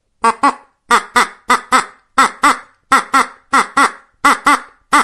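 Duck quacking in quick pairs, two short quacks at a time, repeated at a steady pace about every two-thirds of a second.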